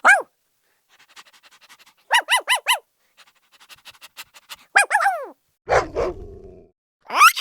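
A dog panting rapidly between short high yips: three quick yips about two seconds in, two more near five seconds, a lower, rougher bark just after, and a rising yelp at the end.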